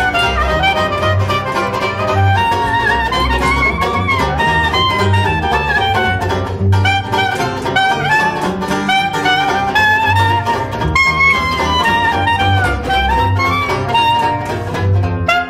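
Small traditional jazz band playing live: a clarinet carries a moving melody over a walking plucked double bass and a strummed banjo keeping a steady beat.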